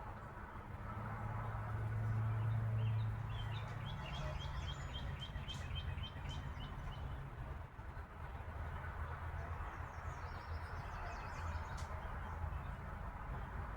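A small bird chirping: a quick run of repeated high notes, about four or five a second, for a few seconds, then a few fainter chirps later. Under it runs a steady low hum that is loudest in the first few seconds.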